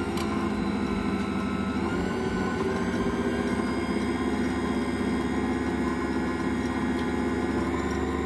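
Ankarsrum Assistent stand mixer's motor running steadily at speed, driving the balloon whisks through liquid in the plastic bowl.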